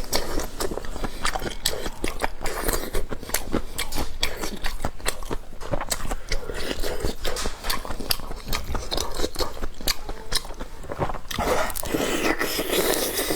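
Close-miked chewing and biting of pork tripe in red chili oil: a dense, irregular run of short wet clicks with no pause.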